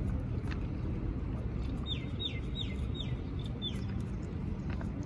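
A bird calling a quick run of six short, high, falling notes, about three a second, over a steady low rumble.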